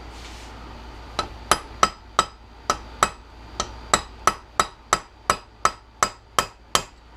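Hammer tapping on a Honda ATV brake caliper to drive the pistons out through holes drilled in its back: about seventeen sharp metallic taps, roughly three a second, starting about a second in. The pistons are pressed in and do not tap out easily.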